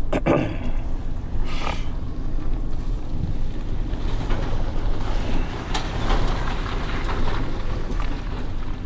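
Roll-off dumpster truck running, a steady low rumble with wind noise on the microphone.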